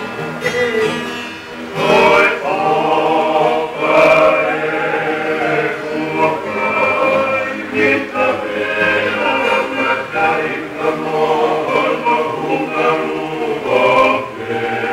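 A group of men singing together in harmony to an acoustic guitar, in Tongan string-band style; the full group comes in strongly about two seconds in.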